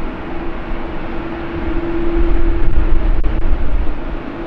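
Wide-body jet airliner's engines: a loud, dense rumble with a steady hum, growing louder about two seconds in and easing slightly near the end.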